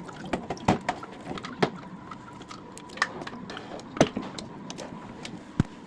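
A handful of sharp clicks and knocks, about five spread over several seconds, over a faint steady hum: parts being handled during work on an air cooler.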